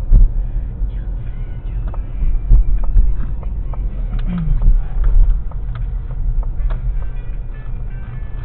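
A vehicle driving on the road: a steady low rumble of engine and road noise, with scattered short clicks and a brief falling tone a little past the middle.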